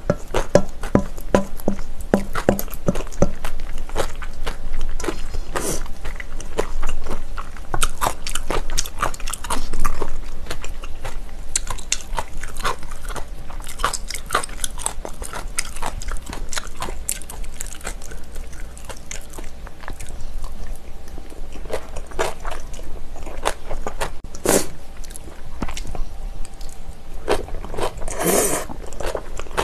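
Close-miked eating of spicy bibimbap: wet chewing and biting, with a metal spoon repeatedly clinking and scraping against a stainless-steel bowl as the rice is stirred and scooped. A louder mouthful near the end.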